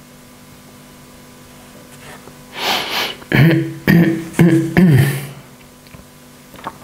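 A man's non-speech vocal outburst: a sharp, noisy breath in, then four short, loud voiced bursts about half a second apart.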